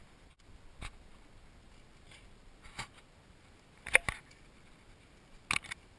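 Quiet outdoor lull broken by a handful of light, sharp clicks and scuffs. The loudest is a quick double click about four seconds in, with another pair near the end.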